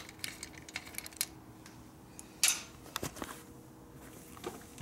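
Scattered light clicks and taps of metal tools and parts being handled, the loudest about two and a half seconds in, over a faint steady hum.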